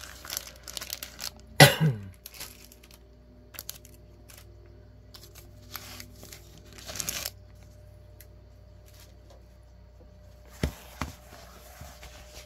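Crinkling plastic wrapping and foil booster-pack wrappers being handled, with scrapes and knocks of a cardboard tube. The loudest scrape comes about two seconds in.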